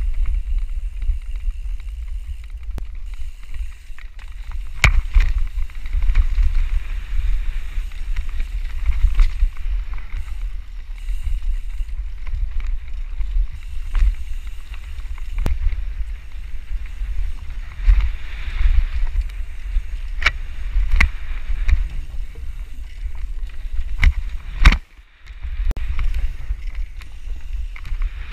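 Mountain bike descending a dirt trail, heard from a camera on the rider: wind buffets the microphone with a steady low rumble, and sharp knocks and clacks come often as the bike rattles over bumps. The loudest knock comes near the end.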